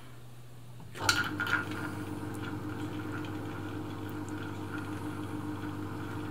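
Elna Air Electronic TSP sewing machine winding a bobbin. Its motor starts about a second in with a few clicks, then runs at a steady, even hum at the low bobbin-winding speed.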